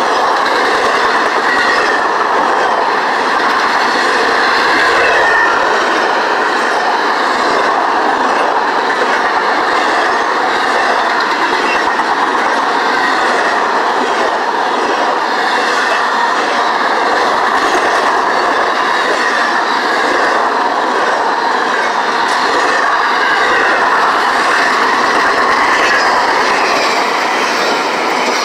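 Freight train cars rolling steadily past, their wheels clattering over the rails, with faint wheel squeal at times.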